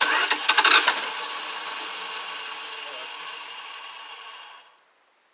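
Chrysler 360 cubic-inch small-block V8 cranked and catching, running briefly on a shot of carb cleaner with no fuel tank connected. It fades and dies after about four and a half seconds.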